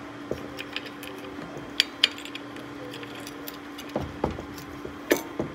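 Light metallic clicks and clinks of steel bolts being threaded by hand into the motor-to-gearbox flange, with two sharp clicks about two seconds in and a cluster of knocks near the end. A faint steady hum runs underneath.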